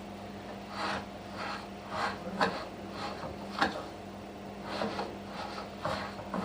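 Dry bulgur being stirred together with paprika paste and spices in a bowl. It gives irregular short scraping strokes, roughly one or two a second, over a faint steady hum.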